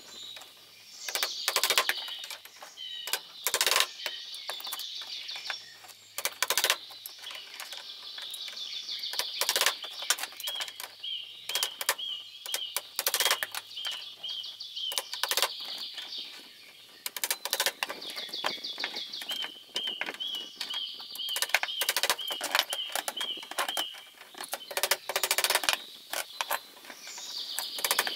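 Birds chirping, including two long runs of short, evenly spaced chirps, over frequent irregular sharp knocks and clicks.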